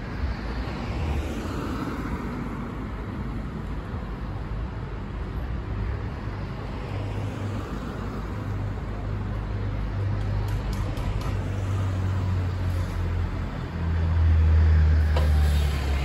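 Bombardier TVR rubber-tyred tram running slowly on its tyres in road mode, off its guide rail, its low hum growing louder over the last few seconds as it draws near, over steady street traffic.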